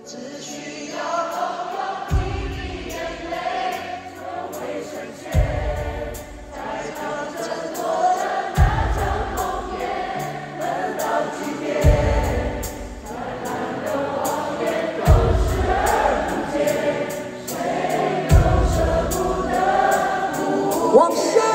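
A live Mandarin pop song performed by a band, with sung vocals over the band and a deep bass hit about every three seconds, heard from among the audience in an arena.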